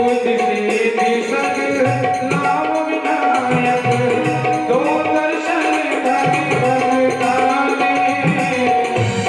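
Hindu devotional bhajan music: tabla playing a steady rhythm under a sustained melodic accompaniment.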